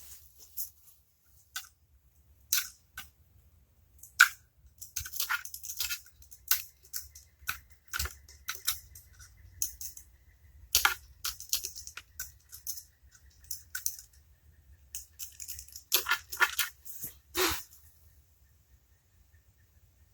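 Intermittent scraping, scratching and clicking as caked dirt is cleared out around the oil pan bolts of an old engine block, with a denser run of scrapes near the end.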